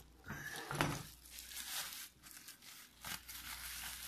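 Plastic bubble wrap crinkling and rustling in short spells with a few sharper crackles, handled to unwrap a CPU-cooler mounting bracket.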